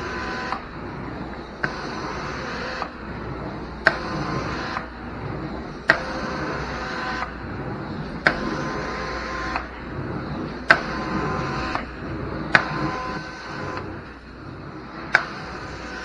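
Hot water extraction carpet wand drawn in repeated strokes over carpet, its suction hissing steadily and changing in tone with each stroke. A sharp click marks the start of a new stroke about every two seconds.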